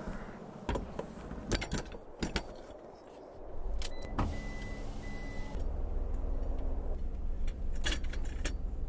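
Keys clicking and jangling at a camper van's ignition, then the van's engine starting and settling into a steady low idle. A thin steady tone sounds for about a second and a half as it starts.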